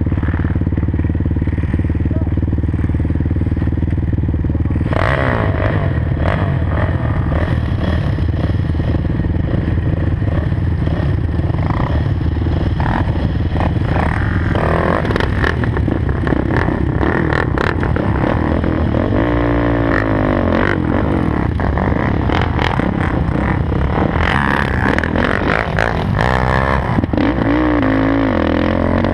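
Sport quad (ATV) engines idling steadily, then revving and accelerating from about five seconds in. The pitch rises and falls several times as the quads spin and pull away on grass.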